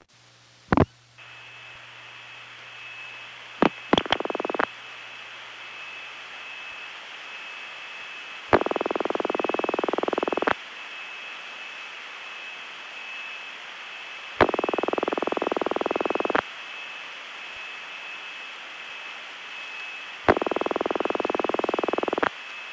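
Bell System ringback tone on an analog telephone line, from the soft ringing machine type installed in suburban exchanges in the late 1940s and early 1950s, in its single-ring version. Three rings about two seconds long and about four seconds apart sound over steady line hiss with a faint high whistle. A few switching clicks come before the first ring. It is a soft, gentle ring.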